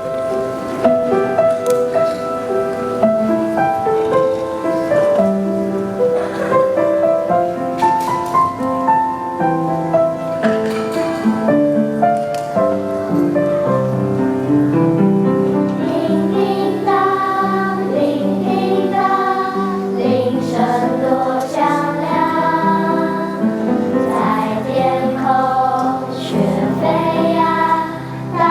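A children's choir singing, several voices holding sustained notes together in a slow melody, with lower parts joining a few seconds in.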